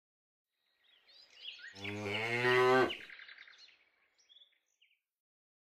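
A cow mooing once, one long moo lasting a little over a second. Faint bird chirps sound around it.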